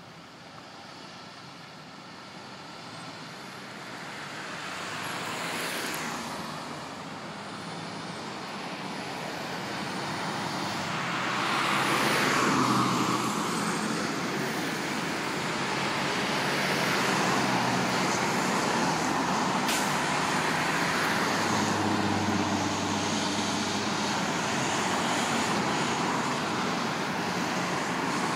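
Tow trucks and other vehicles driving past, with engine and tyre noise swelling and fading as each goes by. The loudest pass-by comes about twelve seconds in, and the traffic stays steady and fairly loud after that.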